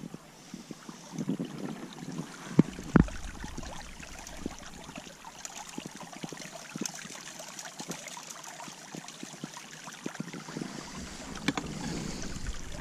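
Creek water running steadily through an aluminium sluice box while a hand scoop of pay dirt is lifted from a plastic bucket and tipped into the sluice, with gravel giving small ticks on the metal. Two sharp knocks about three seconds in are the loudest sounds.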